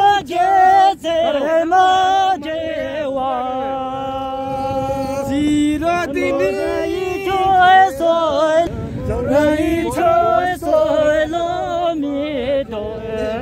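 A voice singing a slow melody with long held notes, one of them held steady for about two seconds near the middle.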